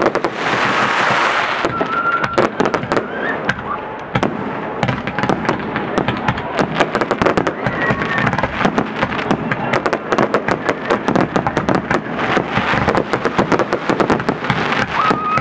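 Aerial fireworks bursting in rapid succession: many overlapping bangs and crackles with hardly a gap, over a hissing rush in the first second and a half.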